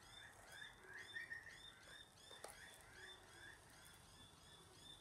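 Faint chirping of birds outside: short rising chirps repeated about three times a second, with one soft click about two and a half seconds in.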